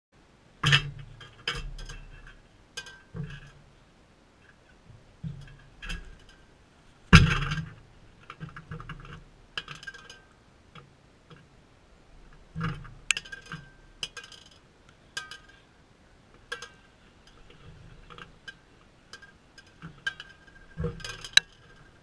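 Irregular taps, clicks and clinks as a sulphur-crested cockatoo feeds on seed at a metal feeder right against the camera, its beak and feet knocking on the rim. The knocks come unevenly, a second or two apart, and the loudest is about seven seconds in.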